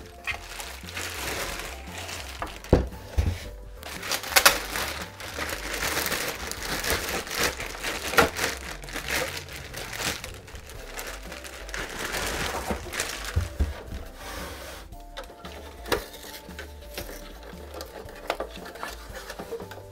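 Thin clear plastic wrapping crinkling and rustling as it is pulled off a plastic toy dollhouse, with a few sharp knocks as the house is handled.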